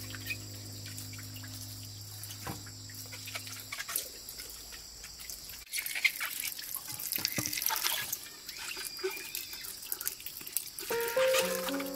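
Water running from a thin hose into a plastic basin, splashing and dripping as peeled bamboo shoots are rinsed by hand; the water sounds come in strongly about six seconds in. Soft background music plays at first, fades, and comes back near the end.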